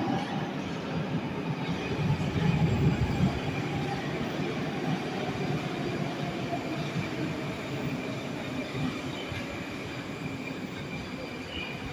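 A metro train rolls into an underground station platform, its wheels rumbling on the rails as it brakes and slows. The sound is loudest a couple of seconds in and gradually dies away as the train nears a stop.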